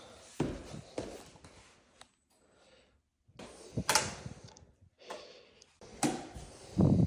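Handling noises in a small room: a series of separate knocks and thumps, with a heavy low thud near the end.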